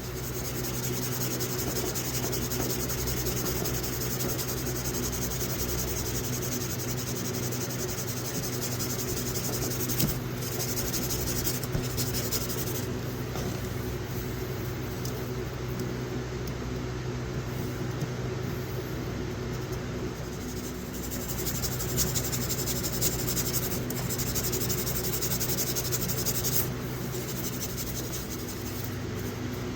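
Knife blade being hand-sanded with 600-grit sandpaper, a continuous scratchy rasping of abrasive paper on steel, over a steady low electrical hum.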